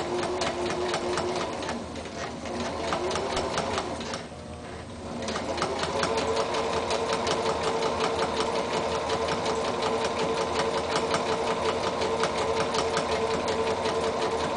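Electric home sewing machine sewing a zigzag stitch through two layers of fabric, the needle striking in a quick even rhythm over the motor's hum. It slows and nearly stops about four seconds in, then runs on at a steady speed.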